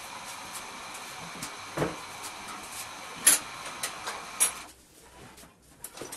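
Router in a router table running steadily with a high whine, dying away about four and a half seconds in. A few sharp knocks of the wooden panel against the tabletop, the loudest about three seconds in.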